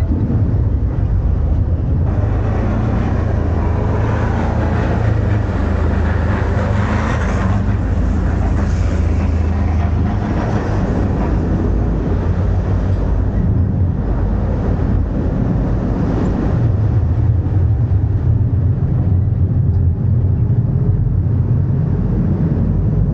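River tour boat's engine running steadily under way, a low drone, with the rush of churned water along the hull that is louder for the first several seconds.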